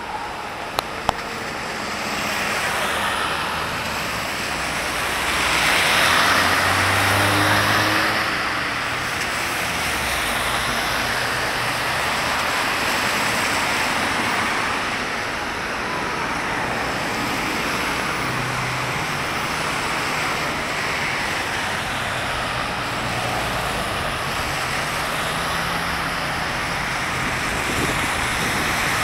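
Road traffic on a wet city avenue: cars passing, their tyres hissing on the wet asphalt over a low engine hum, swelling and easing as vehicles go by. Two sharp clicks about a second in.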